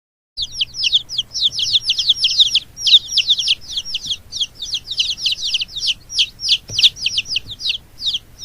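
Baby chicks peeping: many rapid, high-pitched cheeps in quick succession, each falling in pitch, overlapping as from several chicks.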